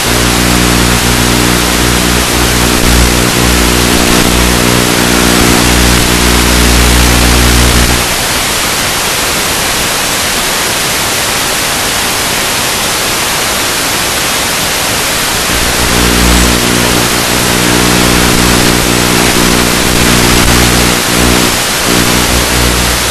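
Loud, steady rushing wind noise on the microphone in strong wind. A low steady hum made of several tones sits under it for the first eight seconds, drops away, and returns about sixteen seconds in.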